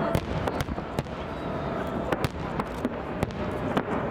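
Festive fireworks display: an irregular run of bangs and crackles from shells bursting, about two a second, over a continuous rumbling haze.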